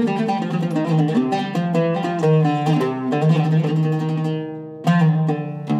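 Zeryab oud with a cedar soundboard, Indian rosewood back and Kröschner strings, played with a plectrum to test its tone. A quick run of plucked notes leads into a held note that fades out about four seconds in. A few more strokes follow, and the last one is left ringing.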